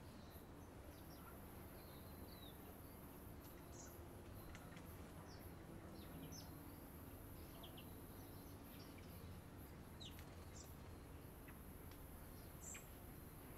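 Faint, scattered short bird calls and chirps from garden birds, over a steady background hiss.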